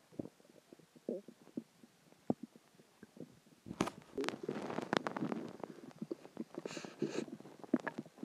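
A person's stomach growling and gurgling, with gas and water moving through the gut after a meal. Scattered small pops and gurgles, then a louder, longer run of gurgling starting about four seconds in, with more gurgles after it.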